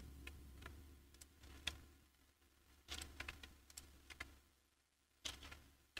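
Near silence: faint room hum with a few scattered soft clicks of a computer keyboard and mouse.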